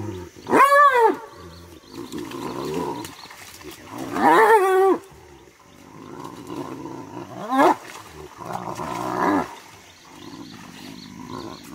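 Spotted hyenas fighting: three loud pitched cries, one about a second in, a longer one around four seconds and a shorter rising one near eight seconds, with rough, lower sounds between.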